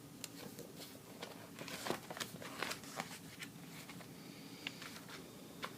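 Pages of a thick magazine being handled and turned: faint paper crinkles and small irregular ticks, busiest around two to three seconds in.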